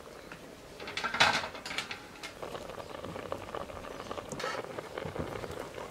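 A short clatter of metal dishes about a second in, then a pot of dovğa with meatballs bubbling at a steady boil.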